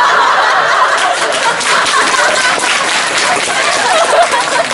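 Live audience laughing loudly, with scattered clapping joining in partway through.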